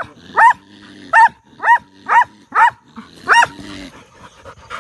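Dog barking fast and high-pitched, about seven sharp barks in under four seconds, then a short pause. The barking is aimed into a burrow where a skunk is cornered.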